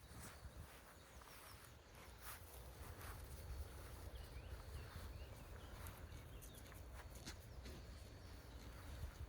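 Faint farmyard sounds of sheep and lambs moving about: scattered light clicks and hoof steps over a low, steady rumble.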